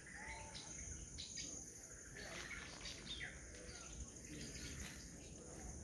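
Woodland ambience: scattered short bird chirps over a steady, high-pitched insect drone.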